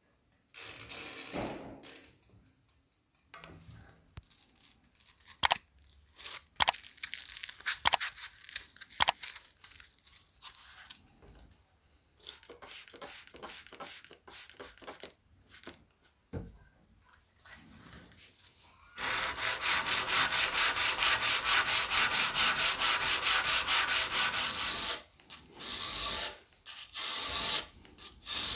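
Hand-sanding a steel knife blade clamped in a vise: rapid, even back-and-forth abrasive strokes, loudest and most continuous for several seconds past the middle. Before the sanding there are sharp clicks and knocks of the blade being handled.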